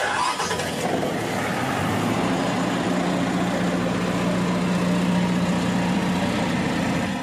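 Generator set's engine starting after the controller's start button is pressed. It comes in loud and sudden, and after about two seconds settles into steady running with a steady low tone.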